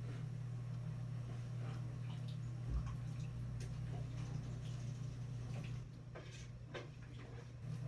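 A steady low hum, with faint scattered clicks and light taps of kitchen work and one dull thump about three seconds in.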